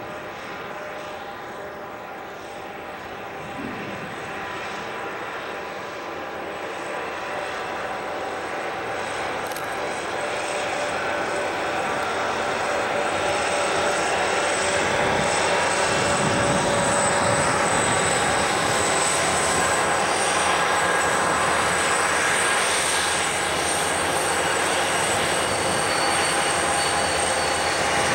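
Several Southern Pacific diesel-electric locomotives running as they come closer and pass, growing steadily louder over about the first half and then staying loud as the units and the first cars go by.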